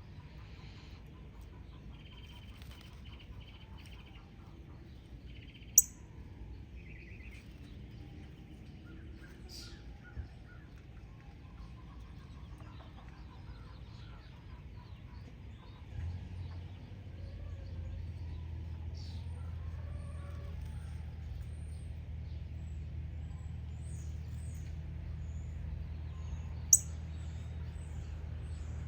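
Wild birds chirping and calling on and off, with two sharp clicks, one about six seconds in and one near the end. A steady low hum comes in about halfway through and carries on.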